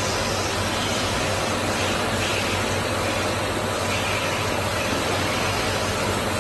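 ATC CNC router running with its dust collector: a steady, even rushing noise with no distinct tone or knock.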